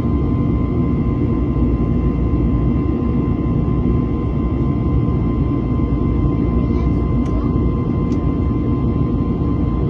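Airbus A321neo cabin noise in flight: the steady rumble of its CFM LEAP-1A engines and the airflow, with a steady whine above it. A few faint high ticks come near the end.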